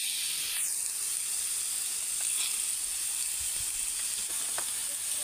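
Pork slices sizzling on a hot ribbed grill plate, a steady sizzle throughout. A few faint clicks near the end as metal tongs handle the meat.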